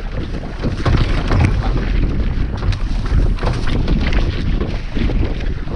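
Wind buffeting the microphone on a small boat at sea, over a steady low rumble with irregular crackles.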